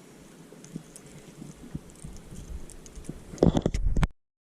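Scattered light clicks and taps, then a cluster of louder knocks near the end that cuts off abruptly into silence.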